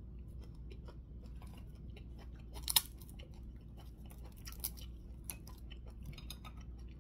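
Close-up chewing and crunching of fried fish eaten by hand: a scatter of small crisp crackles and clicks, the loudest a little under three seconds in.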